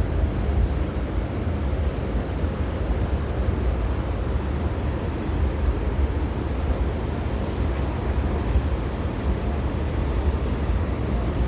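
Steady low outdoor rumble with a fainter hiss above it and no distinct events.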